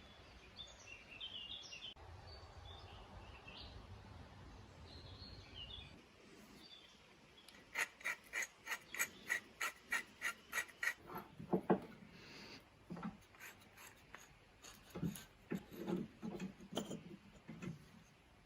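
Quick, even scraping strokes by hand, about three a second for a few seconds, followed by irregular knocks and scrapes as a metal tool is handled.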